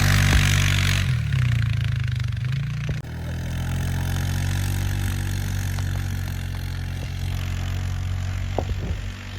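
A vehicle engine running. It is loud and shifting in pitch at first, drops off sharply about three seconds in, then settles to a steady idle.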